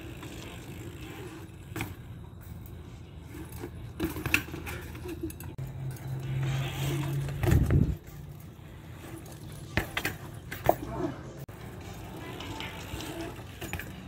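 BMX bike on concrete: tyres rolling with the chain and loose parts rattling, and several sharp knocks as the bike hits the concrete. A heavy thump about halfway through is the loudest sound.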